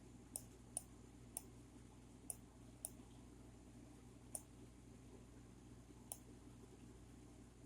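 Faint, scattered clicks of a computer mouse, about eight of them at irregular intervals, over quiet room tone with a low hum.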